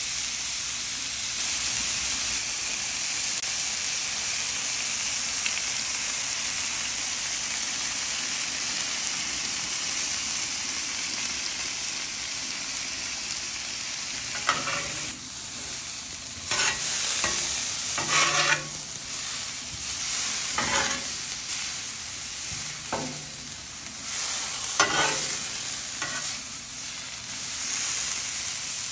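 Onions and a chuck roast sizzling steadily on a Blackstone flat-top griddle. From about halfway through, a spatula scrapes and turns them in short strokes.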